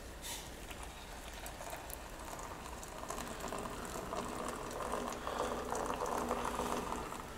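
Hot coffee being poured from a pot into a stainless steel mug, a steady splashing pour that grows louder through the middle and eases off near the end.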